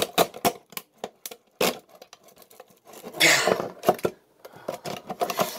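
Handsaw teeth scraping and catching on the metal lid of a tin can as it is sawn open, making irregular clicks and rasps, with one longer, louder scrape about three seconds in.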